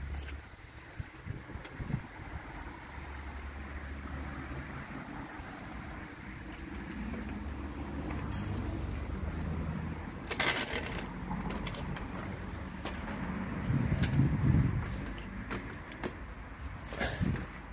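Outdoor ambience: a steady low hum of distant road traffic, with a pigeon cooing, loudest about fourteen seconds in, and a couple of sharp knocks.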